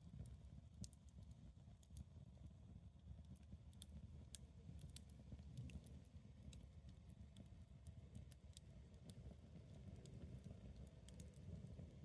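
Faint campfire crackle: burning wood giving irregular sharp snaps and pops over a low steady rumble.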